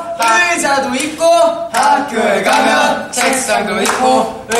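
Several young men's voices chanting a memory-game rhyme in a sing-song rhythm, calling out words one after another.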